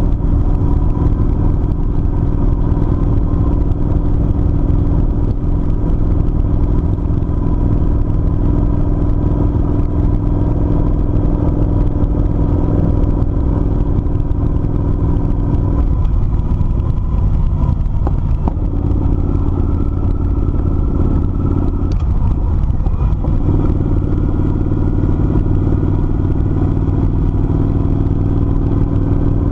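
Kawasaki Vulcan 900 V-twin engine running steadily while the motorcycle cruises, heard from on the bike. The engine note dips and shifts briefly twice in the second half before settling again.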